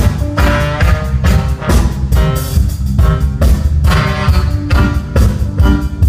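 A band playing live at a sound check: drum kit keeping a steady beat under guitar and bass.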